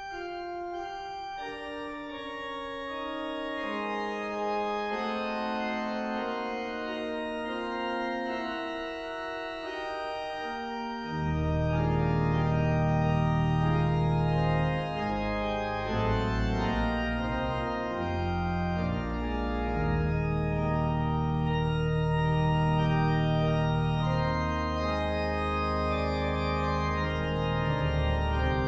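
Organ playing slow, sustained chords; deep bass notes come in about eleven seconds in and the music grows fuller and louder.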